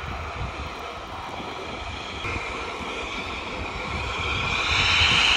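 Boeing 787's twin turbofan engines whining at taxi power, the whine growing louder near the end as the jet turns toward the listener.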